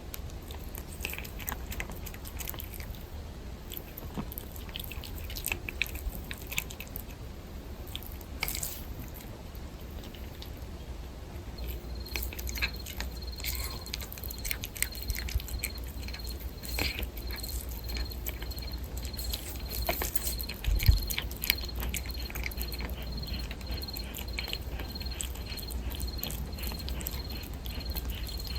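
A cat eating, chewing and crunching its food in many quick, irregular clicks. A single low thump sounds about two-thirds of the way through.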